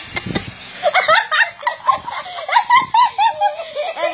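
A woman laughing in a high-pitched voice, her pitch jumping up and down.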